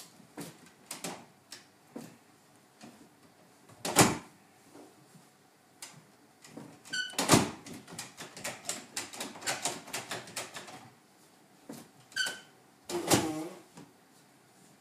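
Clicks, rattles and knocks from a door's metal lever handle and the wooden door as a toddler tugs and pushes at the handle. A sharp knock about four seconds in is the loudest, and a quick run of rattling clicks follows from about seven to ten and a half seconds.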